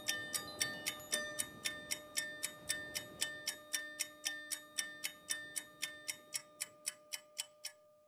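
Background music built on steady clock-like ticking, about three to four ticks a second, over a few held tones, fading out near the end.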